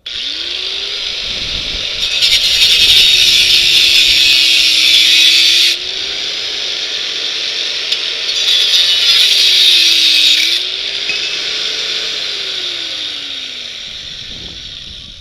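Angle grinder cutting through the steel tubing of a bicycle frame. The motor spins up, then two loud bouts of hissing cut into the steel, each a few seconds long, make its pitch sag under load. It winds down near the end.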